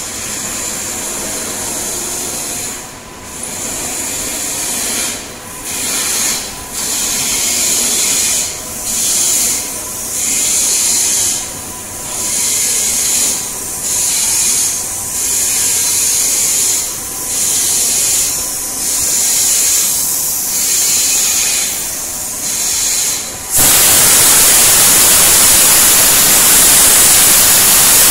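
Compressed air hissing from a hose in short repeated bursts, roughly one every second and a half. Near the end it turns into a steady, louder rush of air.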